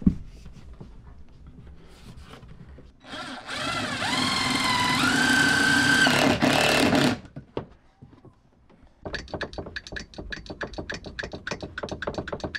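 A cordless drill-driver runs for about four seconds as it drives a screw into a cable clamp, its whine stepping up in pitch, then stops sharply. After a short pause, a hydraulic crimping tool crimping a lug onto a heavy battery cable gives a fast, even run of clicks.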